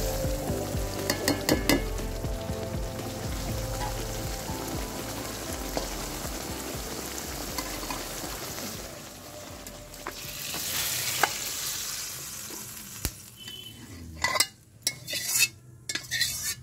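Climbing perch curry frying and sizzling in mustard oil in a metal wok, stirred with a spatula that scrapes against the pan. A few sharp knocks come near the end.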